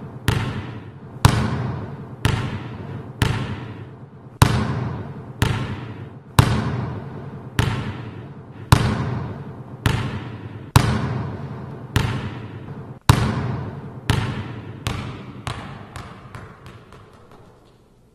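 A basketball being dribbled about once a second, each bounce echoing. Near the end it is let go, and the bounces quicken and fade as the ball comes to rest.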